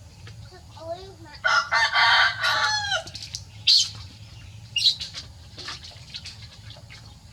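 A drawn-out crowing call of about a second and a half, its pitch falling at the end, followed by two short sharp sounds about a second apart.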